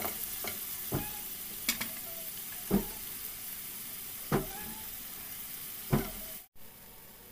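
Chopped red onions sizzling in hot oil in a metal pot, stirred with a silicone spatula that knocks against the pot about five times, roughly every second and a half. The sizzle cuts out for a moment near the end and comes back quieter.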